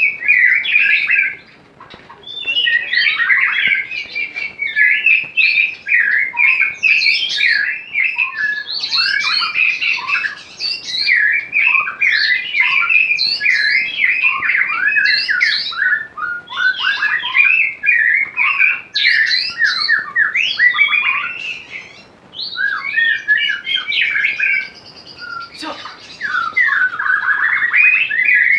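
A songbird singing a fast, varied run of chirps, trills and squawky notes with hardly a break, pausing briefly about two seconds in and twice near the end.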